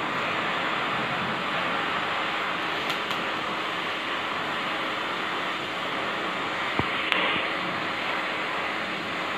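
Stick-welding arc crackling and hissing steadily as steel chain links are welded onto a round steel plate, with a single sharp click about two-thirds of the way through.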